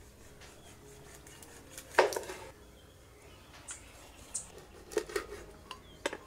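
Large kitchen knife cutting a whole fish into steaks on a wooden board: one loud knock with a short metallic ring about two seconds in as the blade goes through and strikes the board, then several lighter knocks and taps.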